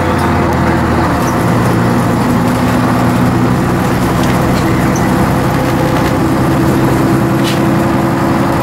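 Scania N113 double-decker bus's rear-mounted 11-litre six-cylinder diesel engine running under way, heard from the upper deck. The steady engine note shifts about a second in.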